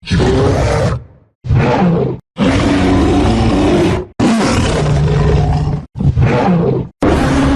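Monsterverse Kong's roar sound effects: about six separate deep, gliding roars and growls played one after another, each cutting off suddenly before the next begins.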